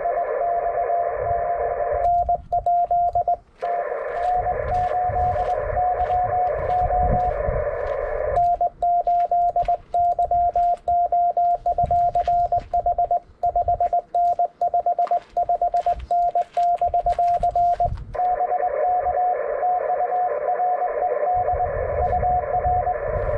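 Amateur radio transceiver sounding Morse code (CW) through its speaker: one steady tone keyed in dots and dashes, at times over band hiss and at times clean with sharp clicks between the characters, as stations are worked in a CW pileup.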